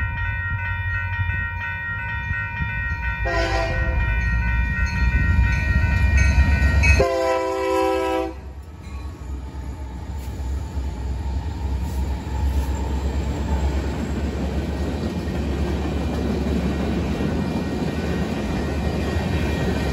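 Union Pacific freight train's diesel locomotives sounding their horn at a grade crossing: a short blast about three seconds in and a longer one about seven seconds in, over a steady low engine rumble. After about eight seconds the locomotives are past and the freight cars roll by with a steady rumble of wheels on the rails.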